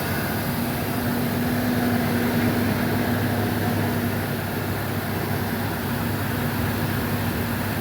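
Freshly rebuilt 3.0 L Vulcan V6 of a 2004 Ford Ranger idling evenly with a steady hum, running smooth as a bell, a sign the rebuild came out healthy.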